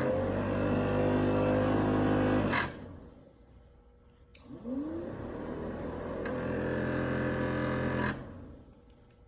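Car heater blower motor switched on and off twice, with a click at each switch. Each time the fan whine rises quickly as it spins up, runs steadily for about two and a half to three and a half seconds, then cuts off.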